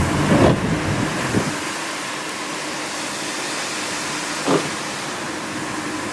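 Car driving, a steady road and engine noise. The low rumble drops away about a second and a half in, and there is a brief knock near the start and another near the end.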